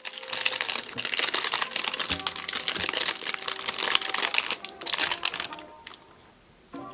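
Slime being mixed with soft Daiso clay: a dense run of sticky, crackly pops and clicks that fades out about six seconds in. Background music starts near the end.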